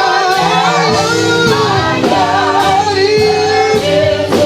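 Live gospel worship music: singers carrying the melody over a band with a steady drum beat.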